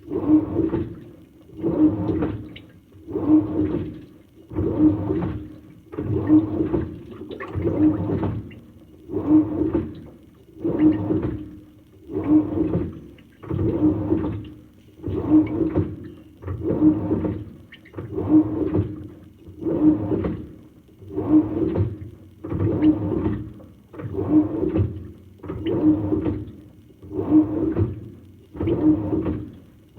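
Samsung top-load washing machine agitating towels and nightgowns in deep-fill water: a water-sloshing stroke with a motor hum, repeating evenly about every one and a half seconds.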